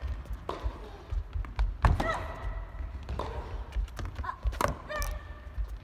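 Tennis rally on an indoor court: the ball is struck back and forth, with sharp racket hits about every second and a half.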